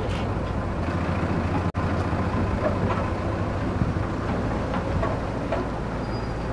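Diesel engine of a JCB backhoe loader running steadily as it carries people through floodwater, with a brief break in the sound about two seconds in.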